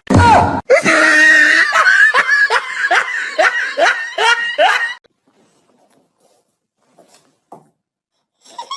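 Hearty laughter in quick repeated rising bursts, about two a second, for about five seconds, then almost silence.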